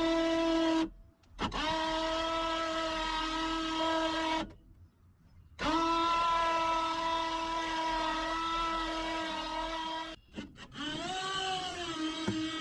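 Electric motor whining at a steady pitch in stretches of a few seconds. It cuts out just under a second in, again at about four and a half seconds, and again near ten seconds, and each restart spins up with a brief rising pitch.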